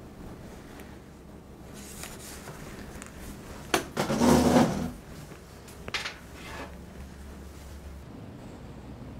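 A sharp knock, then a chair scraping back across the floor for about a second as someone gets up from a table, followed a second or so later by a couple of light knocks, over a low steady hum.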